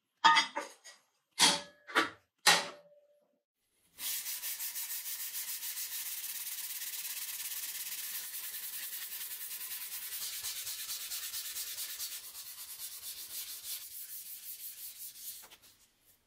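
A few sharp metallic clicks and clunks as a steel rake part is clamped in a bench vise with a locking clamp, then steel being hand-sanded with sandpaper in rapid, even back-and-forth strokes, which stop near the end.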